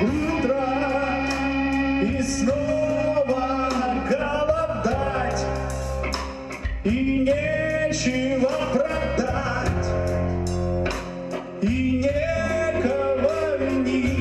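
Rock song: a man singing over a band of guitar, bass and drums.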